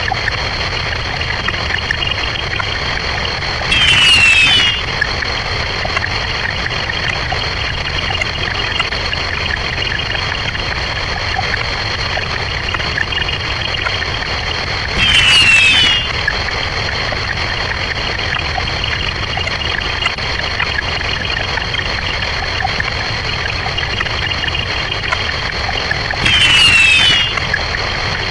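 Sped-up counting sound effects piled into a continuous dense wash. Three times, about eleven seconds apart, a louder burst of about a second carries quick sweeping high tones.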